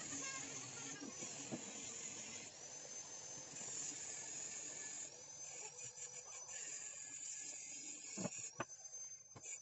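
Small pond waterfall splashing steadily into a koi pond, with a faint, high, wavering whine over it. A few sharp knocks come near the end as concrete cover slabs are set down.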